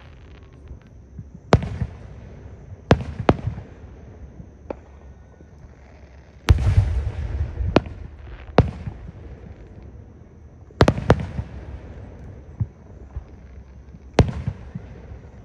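Aerial fireworks shells bursting in a display: about ten sharp bangs at irregular intervals of one to three seconds, several trailing off in a low rumbling echo, the heaviest boom about halfway through.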